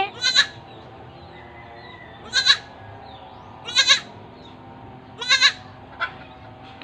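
Newborn goat kid bleating: five short, quavering bleats, one about every one and a half seconds, the last one shorter.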